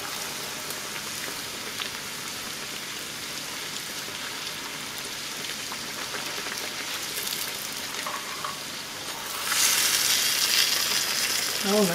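Masa tortilla deep-frying in hot oil in a cast-iron skillet, a steady sizzle as the puffy taco shell cooks. The sizzle gets louder about nine and a half seconds in, as the shell is folded and pressed down into the oil with a mesh strainer.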